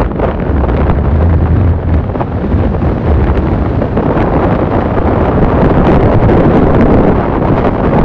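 Loud wind buffeting the microphone at the side window of a moving Toyota Fortuner, with the SUV's engine and tyres on sand running underneath. A low hum swells about half a second in and fades after about two seconds.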